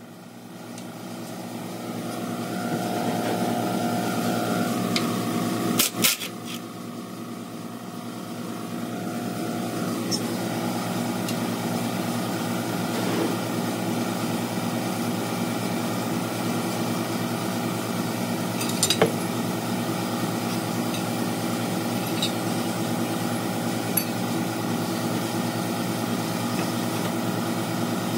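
An engine running steadily at idle, building up over the first few seconds, with a sharp metallic knock about six seconds in and a lighter click later.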